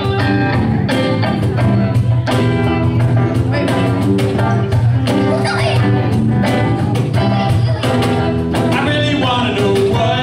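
Live band playing with a steady beat: electric guitar, bass and drums, with a man singing into a microphone.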